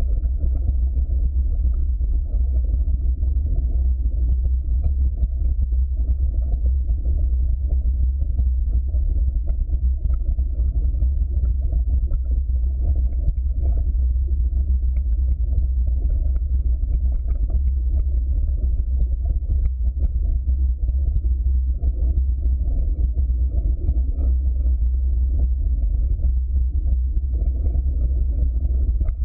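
Steady low rumble of a mountain bike's knobby tyres rolling fast down a dirt trail, with wind on the bike-mounted camera's microphone.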